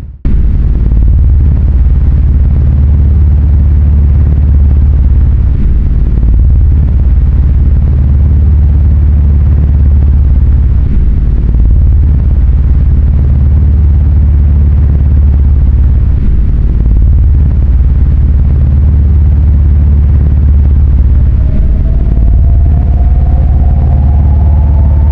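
A loud, steady low rumble, like an engine drone or wind ambience, with no clear events. About twenty seconds in, a faint pitched tone joins and slowly rises.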